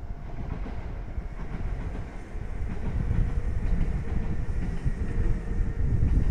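A train running past on the tracks, a low rumble that grows louder from about two and a half seconds in, with a faint steady whine over it.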